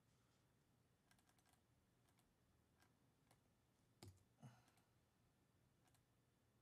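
Faint typing on a computer keyboard and mouse clicks: a quick run of key taps about a second in, scattered single clicks after it, and two soft thumps around four seconds in.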